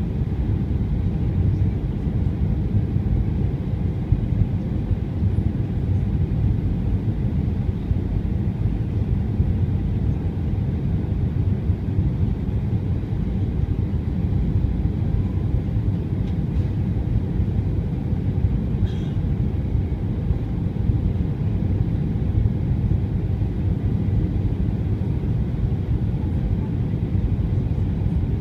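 Steady low rumble inside the cabin of an Airbus A320 on its landing approach: engine and airflow noise heard from a window seat over the wing.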